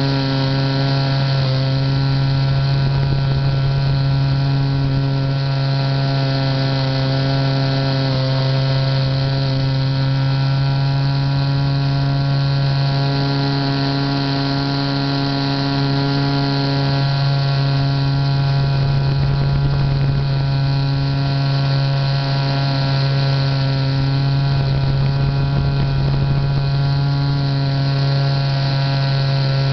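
Motor and propeller of a radio-controlled model plane, the TITAN J3, running steadily in flight, heard close up from its onboard camera. The pitch holds steady, with slight shifts now and then.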